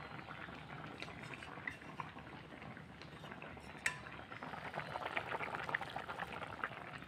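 Vegetable curry bubbling at the boil in a kadhai. A few light clinks of a spoon against a steel bowl and the pan as pieces of cooked fish are spooned into it.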